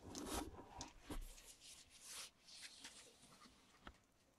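Faint, intermittent rustling with a few soft clicks, the kind of close handling noise heard around a cat and her kittens on a fleece blanket.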